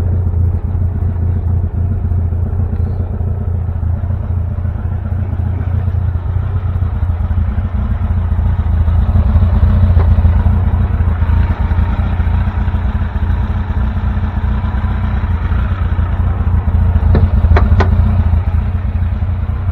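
A custom 1960 VW Beetle's fuel-injected engine idling through its performance exhaust, a steady low note that grows louder around the middle. Two sharp clicks near the end.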